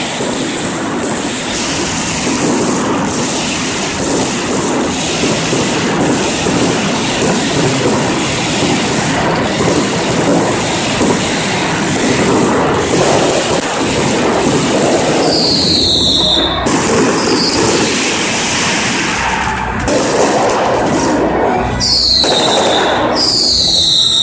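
Many fireworks going off at once close by: a steady dense crackling and popping, with several short high whistles, each falling in pitch, in the second half.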